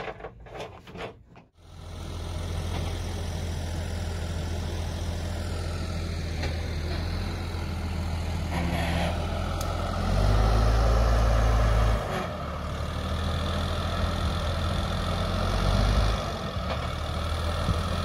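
SAME Laser 150 tractor's diesel engine running with a steady low drone. It comes in after a short quieter stretch, grows louder for about two seconds near the middle, and swells briefly again near the end.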